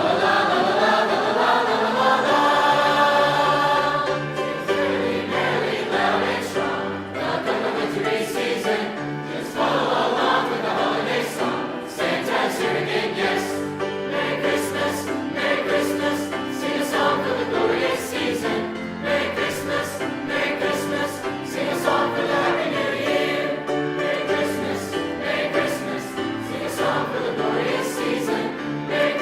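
High school choir singing in a Christmas concert performance.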